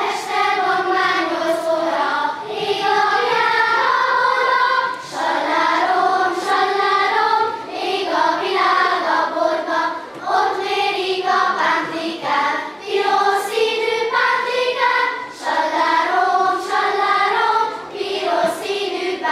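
Children's choir singing, a school choir of young boys and girls. The singing starts suddenly at the beginning and goes on in phrases of a couple of seconds with short breaks between them.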